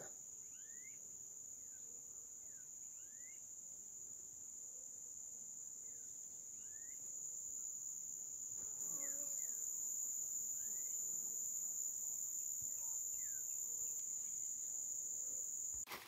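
Steady, high-pitched insect trill, like a cricket's, with faint short chirps scattered over it.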